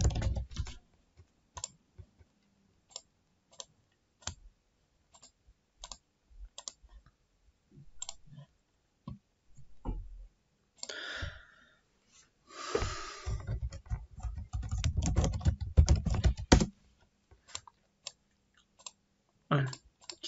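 Computer keyboard typing and mouse clicks: single scattered clicks, with quick runs of keystrokes right at the start and again about two-thirds of the way in.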